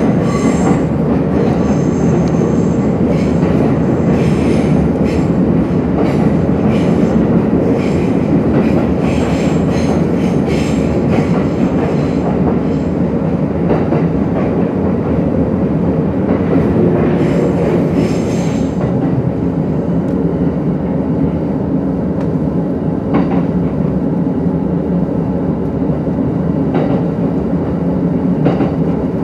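Running noise heard inside an E231-series electric commuter train: a steady rumble of wheels on rail, with a high wheel squeal that fades out about eighteen seconds in. A few brief clicks of wheels over rail joints follow.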